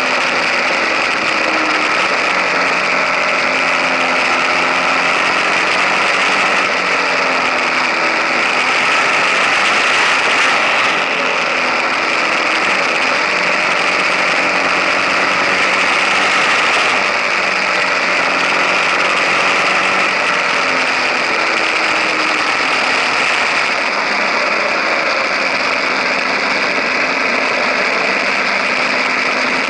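KTM 1050 Adventure's V-twin engine running under way, heard up close from the crash bar beside the engine and road, over steady wind and road noise. Its pitch rises and falls gently as engine speed changes.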